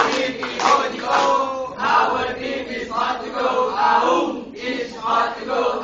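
A group of young men and women chanting their group cheer together in unison, in short repeated phrases.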